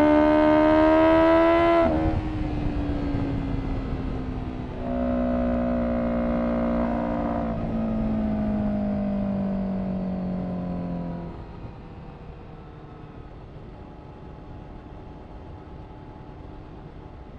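Honda CBR1000RR-R SP FireBlade's inline-four engine through an Akrapovic exhaust, pulling hard with rising pitch. About two seconds in the pitch drops suddenly, and the engine gives a second loud pull with a slowly falling pitch. It then fades to a faint, falling engine note after about eleven seconds.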